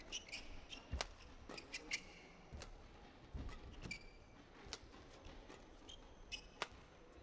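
Badminton rally: sharp cracks of rackets striking the shuttlecock roughly once a second, with short high squeaks of shoes on the court and low thuds of footwork.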